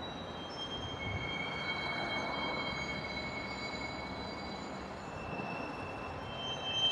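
Steel railcar wheels squealing in a rail yard: several long, high-pitched squeals at different pitches that overlap and come and go, over a steady rumble, typical of freight cars rolling through a classification yard's retarders.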